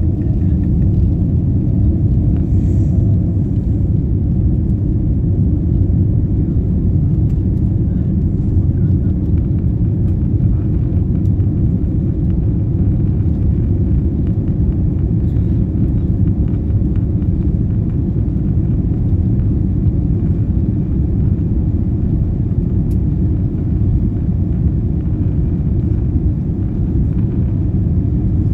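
Steady low rumble in the cabin of a Boeing 787-9 taxiing: engines at low thrust and the wheels rolling over the taxiway, with no spool-up for takeoff.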